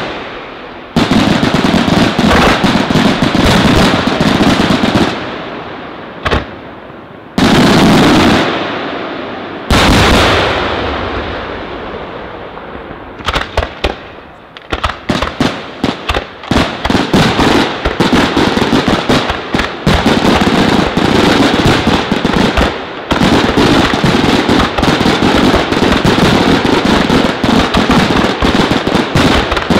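Aerial firework shells bursting. A few big booms come first, each fading away in a long rumble. From about halfway a rapid string of sharp reports builds into a dense, continuous barrage.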